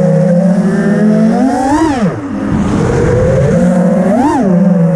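FPV freestyle quadcopter's brushless motors and propellers whining as it flies. The pitch holds steady, climbs sharply and sweeps back down about a second and a half to two seconds in, then does a shorter climb and fall just after four seconds.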